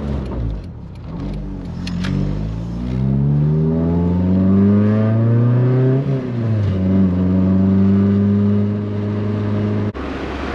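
Honda G23BK four-cylinder VTEC engine pulling hard under full throttle through a loud exhaust. The revs climb steadily for a few seconds, drop at an upshift about six seconds in, and pull again in the next gear until the throttle is lifted just before the end. This is the high-rpm run made to test that the VTEC engages.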